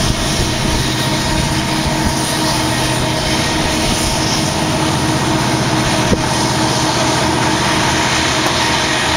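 A pair of EMD SD70 diesel locomotives with two-stroke V16 engines running hard under load, together with the steady rumble of loaded coal hoppers rolling over the rails. A single sharp clank comes about six seconds in.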